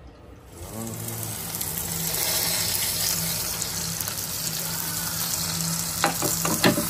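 Food sizzling in a Ninja Foodi indoor grill: a steady hiss over a low steady hum, which start about half a second in and build over the next couple of seconds. A few sharp clinks near the end.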